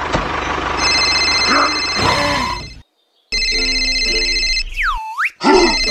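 Mobile phone ringtone: a short electronic melody that repeats, starting about three seconds in after the preceding steady droning sound track cuts off into a brief silence. A quick cartoon whistle glides down and back up in the middle of the ringing.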